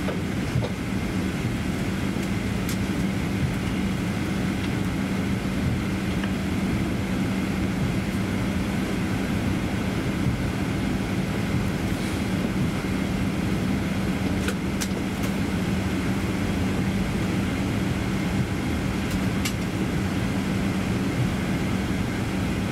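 Steady cabin drone inside a Boeing 737-800 airliner during pushback: a constant low hum over a broad rush of air and machinery, with a few faint clicks.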